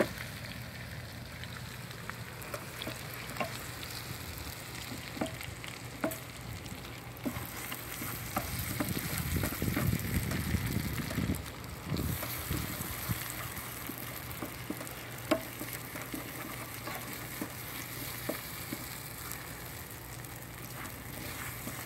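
Steak and pan drippings sizzling in a frying pan while a flour-and-water gravy is stirred in, a utensil clicking against the pan now and then, with a louder stretch of stirring about nine to twelve seconds in.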